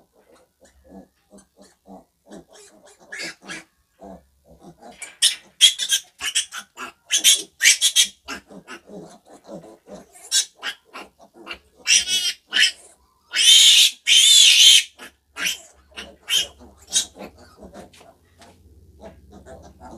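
Piglet grunting in short, rapid grunts, then squealing loudly in a string of sharp squeals as it is held and given an intramuscular injection. The longest squeal comes about two-thirds through, and soft grunts follow.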